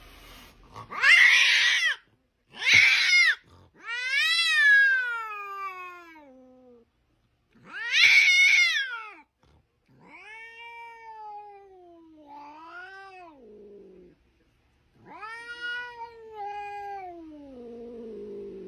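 Domestic cat meowing and yowling in a series of about seven long, drawn-out calls, most sliding down in pitch. The loudest and harshest calls come near the start and again about eight seconds in.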